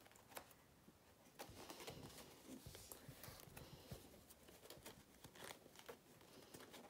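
Near silence: fabric being handled by hand, with faint rustling and a few small clicks.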